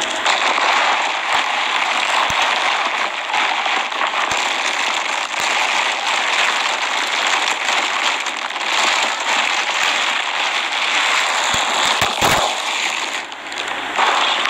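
Clear plastic wrapping and paper packaging crinkling and rustling as they are pulled open by hand, a dense crackle throughout with a few sharper snaps near the end.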